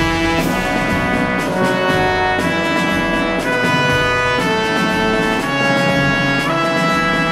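Background music: a melody of held notes over a fuller accompaniment, the notes changing roughly once a second.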